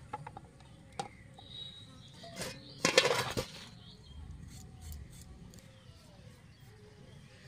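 Raw potato being cut on a boti blade, with light clicks as pieces are sliced. About three seconds in comes a half-second metallic clatter of pieces and utensils on a steel plate.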